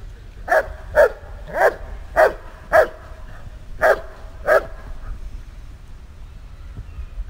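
Giant Schnauzer service dog barking at a decoy in a hold-and-bark (Verbellen) exercise: seven barks, about two a second with a brief gap after the fifth, stopping about four and a half seconds in.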